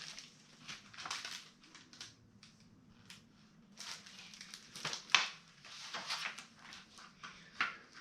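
Paper rustling and crinkling with scattered sharp clicks and taps, as the pages of a hardcover picture book are handled and turned.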